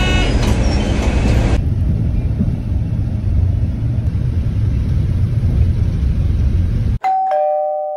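Steady low rumble of a city bus running through traffic, heard from inside the cabin. Near the end the rumble cuts off abruptly, and a two-note descending ding-dong chime rings out and fades.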